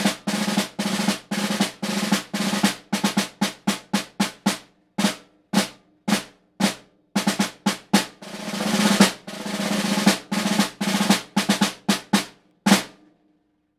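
Snare drum played with wooden sticks: a march part of rolls and accented strokes, with a roll that swells louder about eight seconds in. It ends on a single hard stroke near the end.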